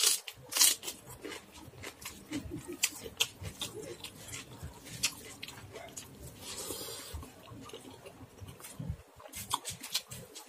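Close-up wet eating sounds: chewing and lip smacks with many sharp mouth clicks as handfuls of rice mixed with dal and fish curry are eaten by hand. Near the end, fingers squish and mix rice on a steel plate.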